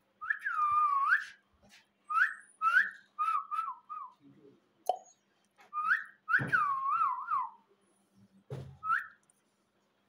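Indian ringneck parakeet whistling: a long swooping note, then short rising notes and warbling runs of up-and-down whistles, in several phrases with pauses between them.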